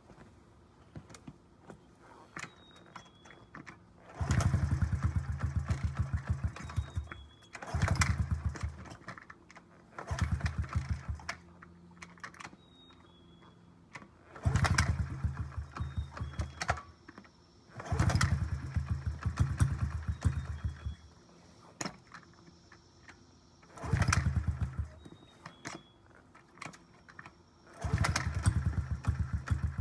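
2009 Honda CRF50F pit bike's small four-stroke single being kick-started about seven times: each attempt turns the engine over in a burst of rapid pulses lasting one to three seconds, then dies away without settling into a steady idle. It is a cold start on choke after two years unused.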